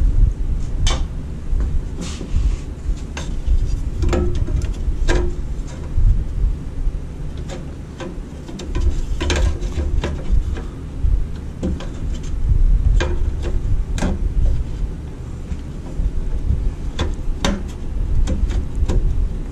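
Hands working a rubber headlight trim ring into place around a Jeep TJ headlight: scattered light taps and clicks of rubber and plastic being pressed and knocked, about one every second or two, over a steady low rumble.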